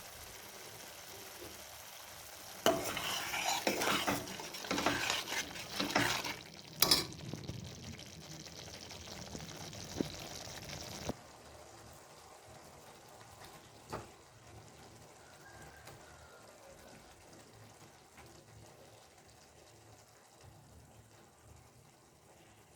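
Food frying in a pan with a steady sizzle, stirred with a spoon that scrapes and clicks against the pan several times near the start. About halfway through, the sizzle drops suddenly to a faint hiss, with a single knock a little later.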